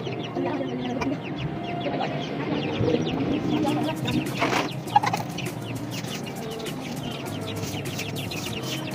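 Chickens clucking repeatedly, with one louder squawk about four and a half seconds in and a sharp knock just after it.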